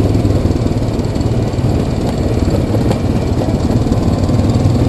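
ATV's single-cylinder engine running steadily as the four-wheeler rides along a dirt and gravel trail.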